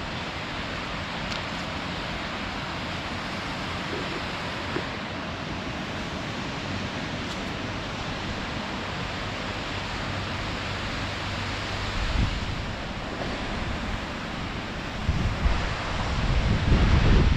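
Steady rush of river water over rocks and falls. Wind buffets the microphone with low rumbling gusts from about 12 seconds in, growing stronger near the end.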